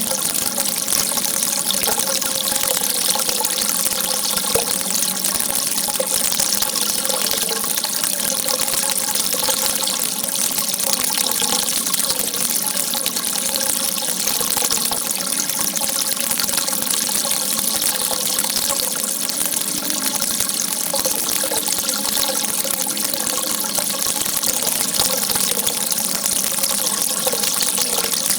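Water gushing in a steady, unbroken rush, with a bright hiss that does not change.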